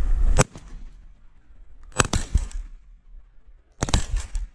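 Three sharp cracks or knocks, about a second and a half apart; the second and third are short clusters of clicks. A low wind rumble on the microphone stops at the first crack.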